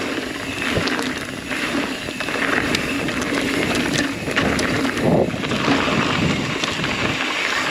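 Ibis Exie mountain bike descending a rocky dirt trail at speed: tyres rolling over rock and dirt with many short clicks and knocks from the bike rattling over bumps, under a steady rush of wind on the microphone.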